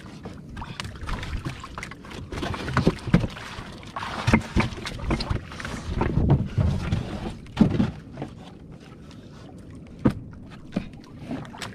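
Water slapping and sloshing around small wooden outrigger boats lying side by side, with irregular knocks and bumps of wood and gear as people move between the boats. It is busiest through the middle and quieter near the end, with one sharp knock about ten seconds in.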